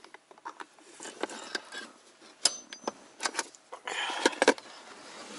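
Scattered light clicks, taps and scraping of a marking tool on the metal console bracket and the plastic console around it, with a brief rustle about four seconds in.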